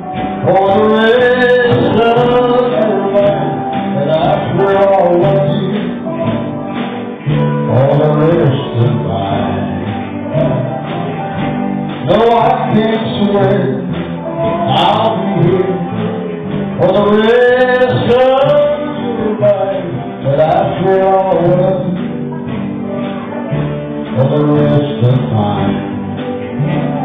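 Small live country band playing: strummed acoustic guitars and a steel guitar, with notes gliding between pitches.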